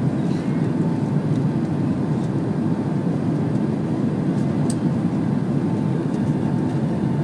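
Steady cabin noise of a Boeing 767-300 airliner coming in to land: an even rumble of engines and airflow heard from a seat over the wing, with a faint steady whine.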